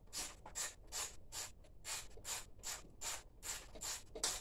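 Quarter-inch drive socket ratchet clicking in short back-and-forth strokes, about three a second, as a bolt is loosened.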